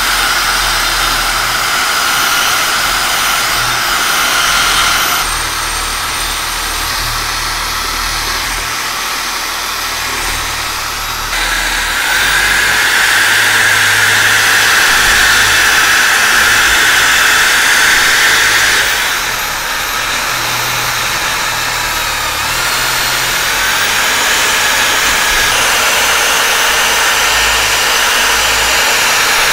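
Wire cup brush spun by a power tool, scouring rust off a cast-iron meat grinder body: a steady motor whine with a scratchy scrubbing hiss. Its pitch and loudness change abruptly several times as the brush moves over the metal.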